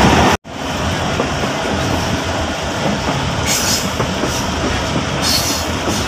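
Passenger train running, heard from inside the coach: a steady rumble and rattle of the wheels on the track. Two short high-pitched hisses come around the middle and near the end.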